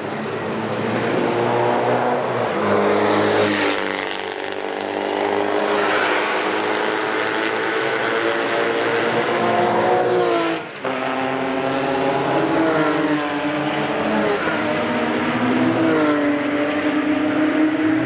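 Several Porsche race cars running hard on the circuit, their engine notes climbing in pitch as they accelerate toward the listener. About eleven seconds in, the note breaks off sharply and comes back lower at an upshift, then climbs again.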